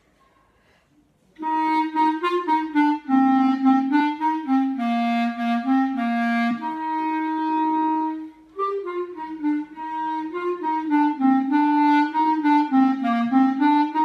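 Soprano clarinet played solo: an unaccompanied melodic passage of changing notes that begins about a second and a half in, breaks briefly for a breath a little past the middle, then carries on.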